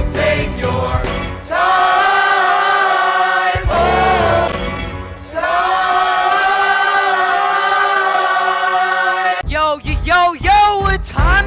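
Music: a choir singing long held chords in two sustained passages, moving into quicker gliding notes near the end.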